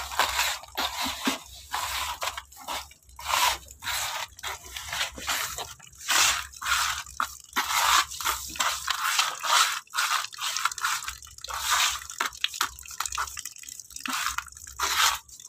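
Hands scrubbing and stirring wet, gritty filter media in a plastic bucket: many irregular crunching, squishing strokes, with water running and dripping into the bucket from a pipe as the media is rinsed.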